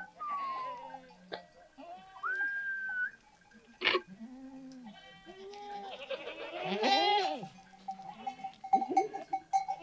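Goats bleating, several overlapping calls at different pitches, the loudest a long wavering bleat about seven seconds in. A single sharp knock near four seconds.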